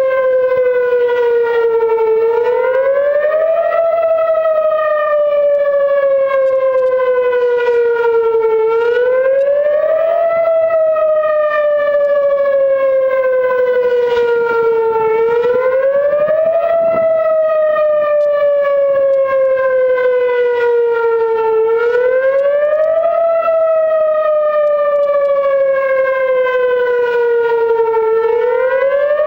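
Whelen WPS electronic outdoor warning siren sounding a Thunderbolt-style wail during a test. Its pitch rises quickly over about a second, then falls slowly for about five seconds, repeating about every six and a half seconds.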